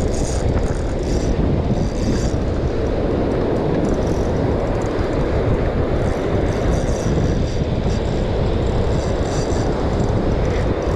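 Heavy wind buffeting the microphone, a steady low rumble, with surf breaking underneath.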